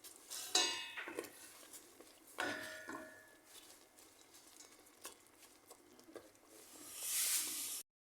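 A spoon stirring herbs in a pot of liquid on the stove, clinking against the pot with short ringing knocks, the loudest about half a second and two and a half seconds in. A brief hiss near the end.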